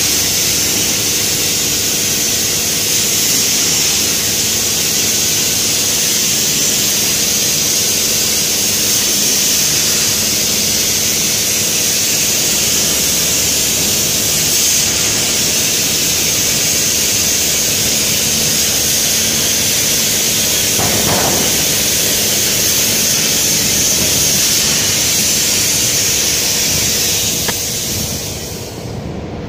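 Sandblasting nozzle blasting abrasive grit at a glass pane with compressed air: a loud, steady high hiss that fades near the end.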